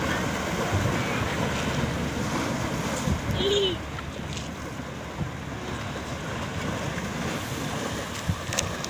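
Small waves breaking and washing among the rocks at the shore, with wind on the microphone.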